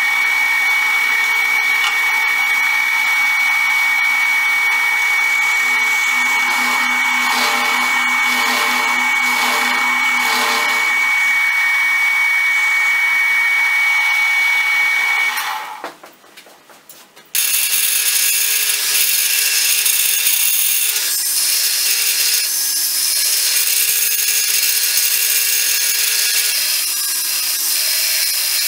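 A cutter spinning in a machine spindle bores a counterbore into a steel plate, with a steady high whine over the running noise. About fifteen seconds in it stops, and after a short break a belt grinder runs as a round steel disc is pressed against its abrasive belt.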